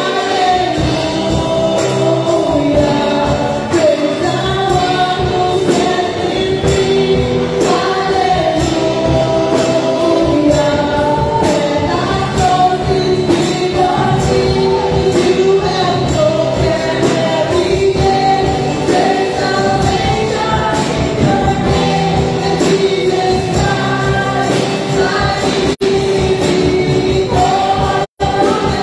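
Live gospel worship music: a woman sings the lead into a microphone over a band of electric guitars and drums with a steady beat, and other voices sing along. The sound cuts out for an instant twice near the end.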